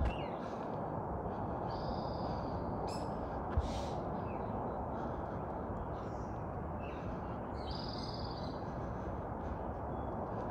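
Wild birds calling a few times: short harsh calls in the first few seconds and a longer buzzy call near the end, over a steady low rushing background. A single soft thump about three and a half seconds in.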